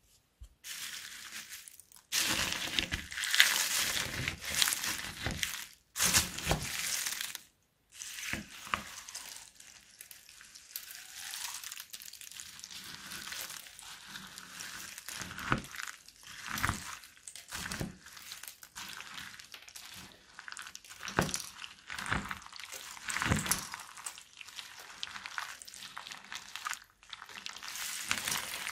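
Chopped plastic drinking-straw pieces and beads crunching and crinkling in a glass bowl as a plastic spatula stirs them into slime and shaving foam. The crunching is loudest in the first few seconds, broken by two short silences, then goes on more evenly.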